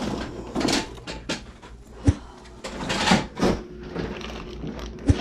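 Items being handled and moved about, with irregular rustling and knocking and two sharp knocks, one about two seconds in and one near the end.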